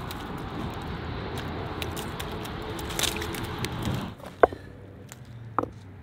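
Crunching and cracking over a steady rush of noise as a dog walks across shore ice and stones. After an abrupt change about four seconds in come a few sharp clacks of stone on stone as rocks are set on a stack.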